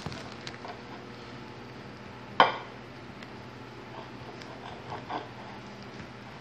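Soft handling at a glass cake plate as a cake is sawn through with a stretched elastic band, over a faint steady hum. One sharp clink of dishware about two and a half seconds in, and a few small taps about five seconds in.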